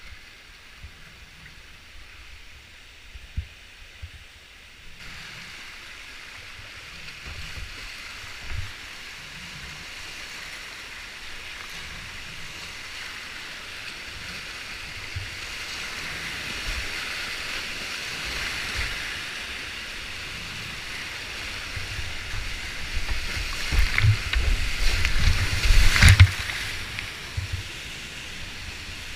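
Whitewater rapids rushing around a kayak. The river is fairly quiet for the first few seconds, with a few knocks, then grows louder as the boat drops into the rapid. Heavy splashes and thumps against the boat and camera come near the end.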